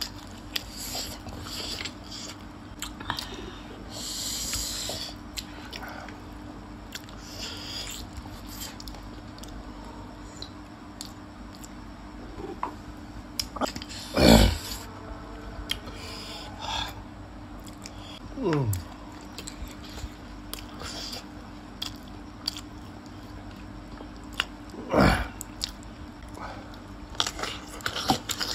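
Close-miked eating of gravy chicken feet: wet chewing, biting and lip smacks, with three louder mouth sounds that drop sharply in pitch, about halfway through, about two-thirds through and near the end.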